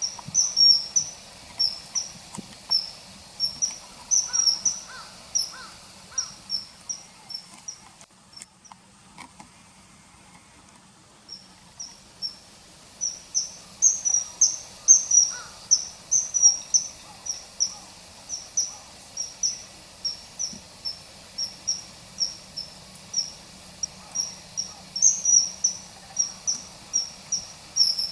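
Common kingfisher calls from a field-guide recording: a rapid run of short, high, piercing whistles, several a second. They break off for a few seconds about eight seconds in, then resume.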